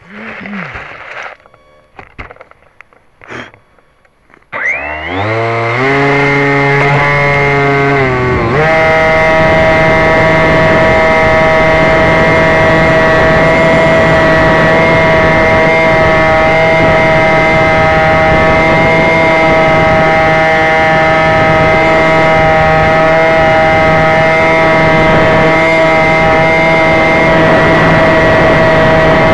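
Electric motor and pusher propeller of a Bixler v1.1 model plane, heard close from the onboard camera: a few knocks and handling noises at first, then about four and a half seconds in the motor spools up, rising in pitch for about four seconds, and holds a steady, loud whine in flight.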